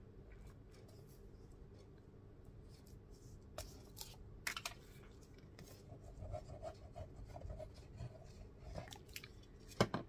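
Quiet paper handling on a cutting mat: scattered light rustles and clicks as paper pieces are pressed down and a glue bottle is used. A single sharp knock just before the end is the loudest sound.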